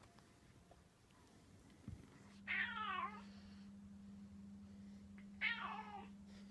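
Domestic cat meowing twice, about three seconds apart, each a short call that rises and falls. The cat is hungry and agitated, wanting to be fed.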